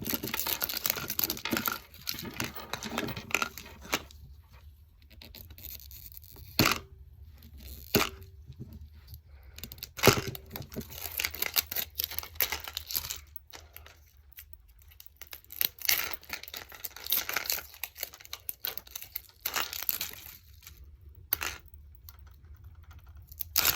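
Small plastic packaging being torn and crinkled by hand while unwrapping a Mini Brands miniature: irregular crackling with a few sharp snaps, and quieter pauses between bursts.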